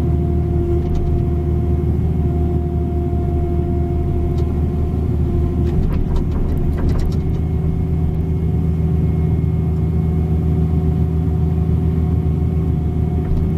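Diesel engine of a 305 mini excavator running steadily while it digs, a constant hum with a few faint clicks and scrapes around the middle.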